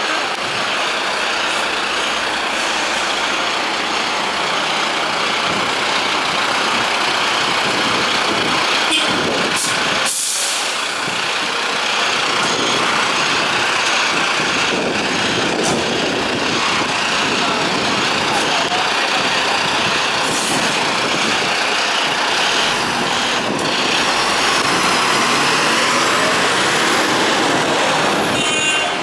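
Mercedes-Benz Atego fire engines' diesel engines running close by as the trucks manoeuvre and pull away, a steady loud truck rumble with a short air-brake hiss about ten seconds in.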